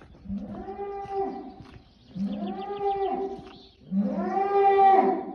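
A bull bellowing three times, each a long call of about a second and a half that rises and then falls in pitch. The third is the loudest.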